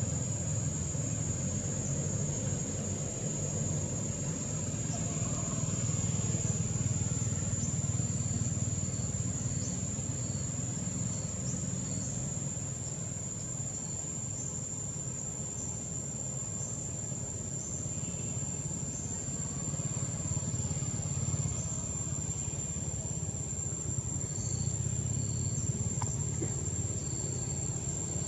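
Outdoor ambience: a steady, high-pitched insect drone with short chirps repeating above it, over a continuous low rumble.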